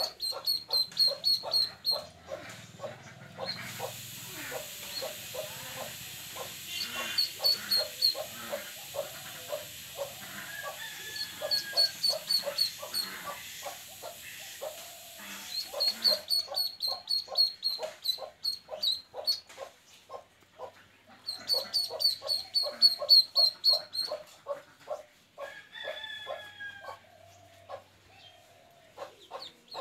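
Duckling peeping in quick runs of short, high calls, about five a second, with a lower rapid ticking underneath and a steady hiss for a stretch in the first half.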